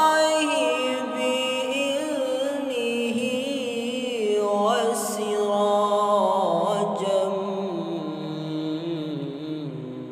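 A man's voice reciting the Qur'an in melodic tilawah style, drawing out long held notes with wavering ornamental turns. About halfway through, the voice glides up to a higher held note, then descends again.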